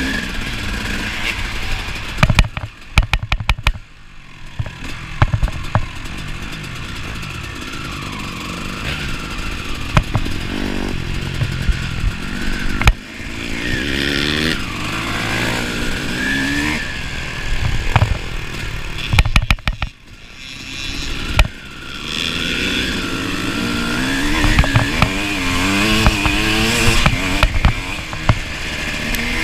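Two-stroke KTM enduro motorcycle being ridden off-road, its engine note rising and falling with the throttle, with rattling knocks over rough ground. The engine drops away briefly twice, about four seconds in and again about twenty seconds in.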